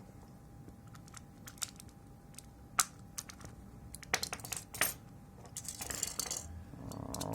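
Sharp clicks and taps of small hard plastic parts as a PS5 controller's add-on back buttons are worked loose, with a scraping rustle near the end.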